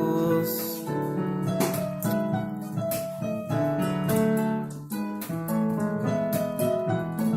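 Electric keyboard playing a slow worship interlude of sustained chords under a simple melody, with light crisp accents on the beat. A held sung note ends about half a second in.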